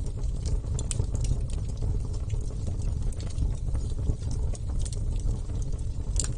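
Wood fire burning with a steady low rumble and irregular crackles and pops, a quick cluster of pops near the end.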